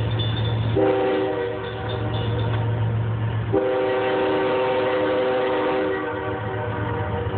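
Two GE Evolution-series diesel locomotives working upgrade at the head of a freight train, with a steady low engine drone. The multi-tone air horn sounds twice: a shorter blast about a second in, then a long blast from the middle until near the end.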